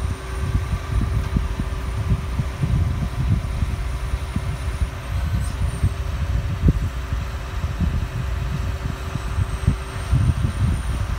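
John Deere S670 combine harvester's diesel engine running steadily, with a few steady whining tones over it. Wind buffets the microphone with an uneven low rumble.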